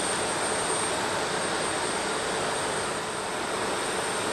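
Jet engine noise from an approaching Boeing 747-400: a steady, even rush with no distinct events. A thin high-pitched tone sits steadily on top.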